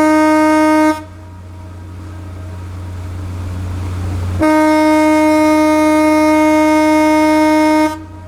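Ship's whistle of the cargo-passenger ship Hahajima Maru blowing long, steady blasts: one ends about a second in, and another sounds from about four and a half seconds until shortly before the end. A low steady hum runs underneath.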